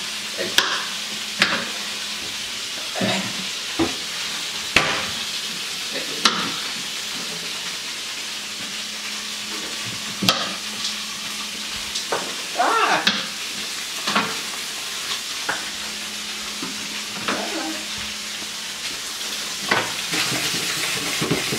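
Tofu frying in oil in a pan with a steady sizzle, mixed with irregular sharp knocks of a knife chopping broccoli on a plastic cutting board.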